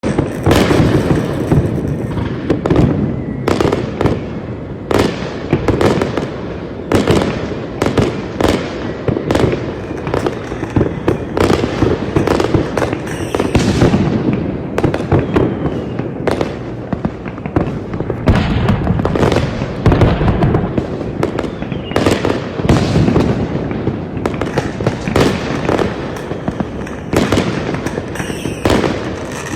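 Fireworks display: a rapid, unbroken series of bangs and bursts of shells over a steady low rumble.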